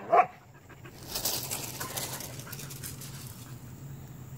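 A puppy's short yip right at the start, then crunching steps on loose gravel for a couple of seconds, fading, over a steady low hum.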